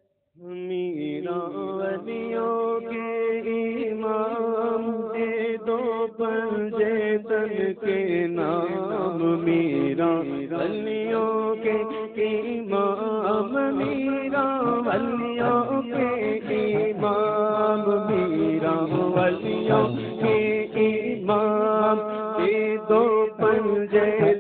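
A man singing a manqabat, an Urdu devotional song, into a microphone over a steady drone. It starts about half a second in.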